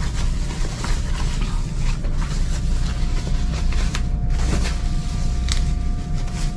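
Plastic wrapping rustling and crinkling in short bursts as it is tugged off a new speaker, clinging tight to it, over a steady low machinery hum with a faint high steady tone.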